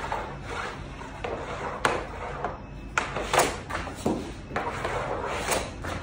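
Hockey pucks being shot with a stick: a series of about five sharp knocks, roughly a second apart, as stick meets puck and pucks strike the targets, net frame and wall.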